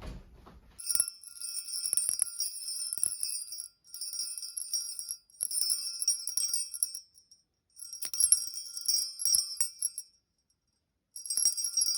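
Jingle bells shaken in five bursts of one to three seconds each, with short pauses between.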